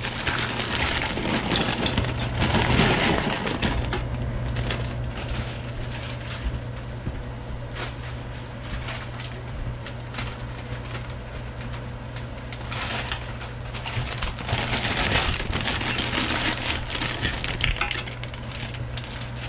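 Frozen cooked lobster shells tipped from a plastic zip-top bag into a stainless steel stockpot, clattering and cracking against each other and the pot, with the bag crinkling.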